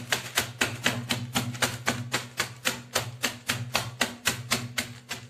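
Hardened caramel-almond brittle inside butter paper being pounded with a rod-shaped tool to crush it into crunch, in rapid, even knocks about five or six a second.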